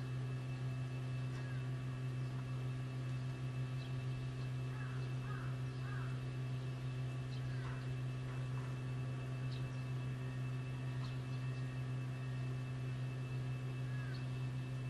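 A steady low hum, with a few faint, short bird chirps now and then.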